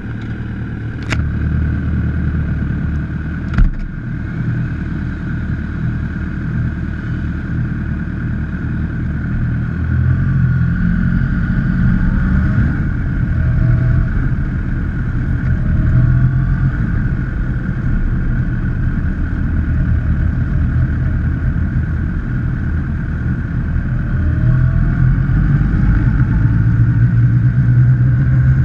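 Motorcycle engine running close to the microphone, idling at first, then pulling away and riding steadily, louder from about ten seconds in and again near the end. A short click about a second in and a sharp knock a few seconds in.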